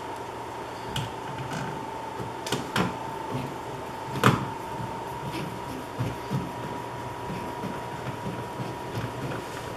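Screwdriver driving a dimmer switch's mounting screws down into the wall box: scattered light clicks and scrapes of metal and plastic, with one sharper knock about four seconds in, over a faint steady high tone.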